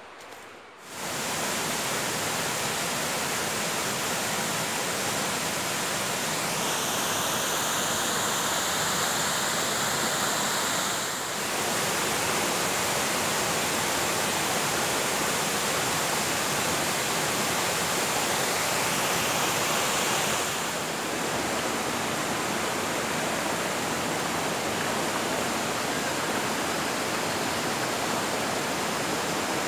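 Shallow rocky forest stream rushing over stones, a steady full hiss of running water that starts abruptly about a second in. A high steady tone with overtones sits over the water for a few seconds in the middle.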